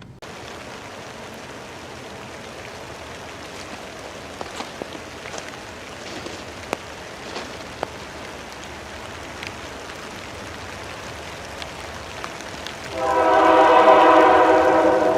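A Pan Am Railways GE B40-8 diesel locomotive's air horn sounds about 13 seconds in: a loud held chord of several notes that carries on past the end. Before it there is a steady rushing noise with scattered clicks.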